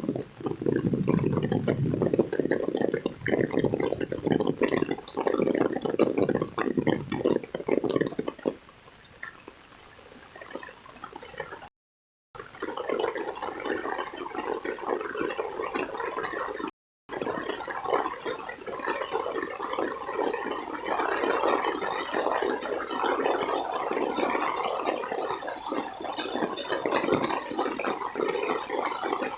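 Heavy rain pouring, dense and steady, with a deeper rushing of water in the first eight seconds or so that then fades. The sound cuts out completely twice, briefly, around the middle.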